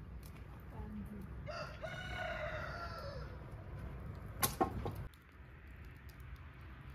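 A rooster crowing once, a single call of about two seconds that falls in pitch at the end. A couple of sharp knocks follow, louder than the crow, over a steady low background noise that drops away suddenly.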